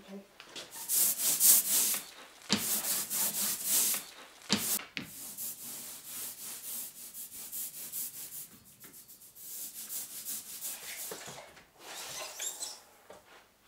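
Hand ink roller (brayer) rolled back and forth over an inking slab, a tacky rasping in repeated strokes, heaviest in the first few seconds. Near the end a large sheet is lifted and flexed with a crinkling rustle.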